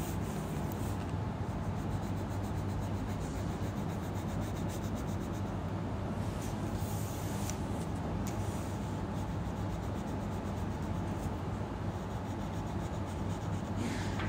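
Colouring in on paper: a brown colouring pen rubbed rapidly back and forth over a sheet on a clipboard, a continuous scratchy rubbing, over a steady low hum.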